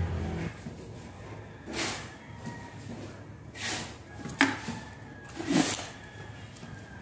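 Four short scrapes and knocks as steel rack ends and a tape measure are handled on a wooden board, the sharpest knock a little past the middle.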